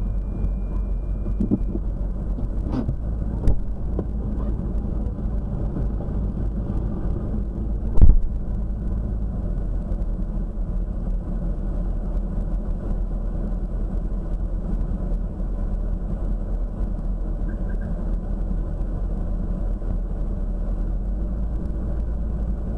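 Steady low rumble of a car heard from inside. A few short sharp knocks cut through it about three seconds in, and a louder one comes about eight seconds in.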